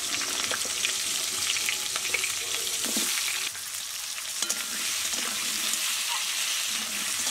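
Potato pieces and slit green chillies sizzling in hot mustard oil in a metal wok, with a metal spatula scraping and clinking against the pan as they are stirred.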